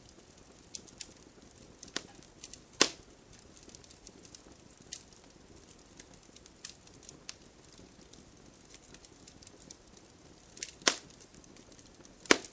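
Wood fire crackling with scattered sharp pops, the loudest about three seconds in and twice near the end, over a faint steady hiss of rain.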